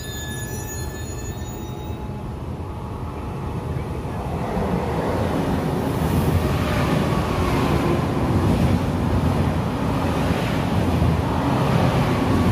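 Italo AGV (ETR 575) high-speed electric train running along the platform: a steady rumble of wheels and running gear that grows louder from about four seconds in. A thin high squeal of wheels or brakes fades out in the first two seconds.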